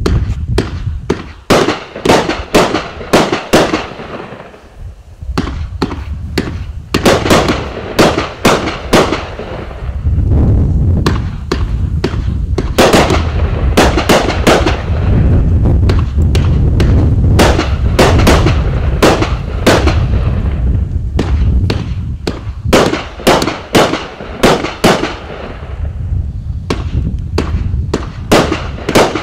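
A 35-shot, 500 g consumer fireworks cake firing shot after shot. Its shells launch and burst in a rapid series of sharp reports, about one to two a second, over a heavy low rumble.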